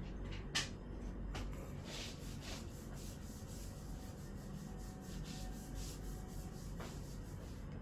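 Soft, repeated rubbing and rustling strokes, like fur or fabric being rubbed, with a few faint clicks.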